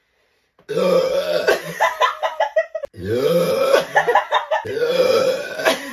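A woman burping loudly twice. Each burp is long and drawn out, the second a little longer than the first.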